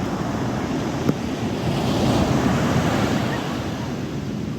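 Sea surf washing onto the shore, with wind buffeting the microphone; the wash swells a little louder about two seconds in.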